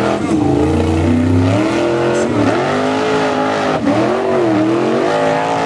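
Formula Offroad competition buggy's engine revving hard, its pitch repeatedly dropping and climbing again as the throttle is worked on the course.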